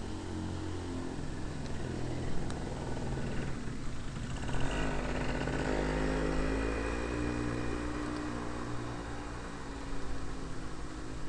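Motor vehicle engine running nearby, growing louder about four seconds in and fading over the following seconds as it passes.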